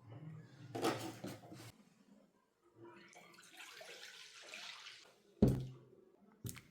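A few knocks, then water running from a tap into a sink for about two seconds, then a sharp knock, the loudest sound, with another small knock near the end.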